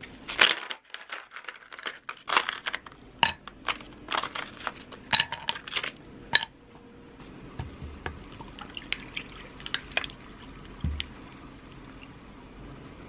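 Ice cubes dropped one after another into a fluted glass tumbler, clinking sharply against the glass and each other. Over the second half, coffee is poured over the ice: a softer, steady pouring sound with an occasional click of ice.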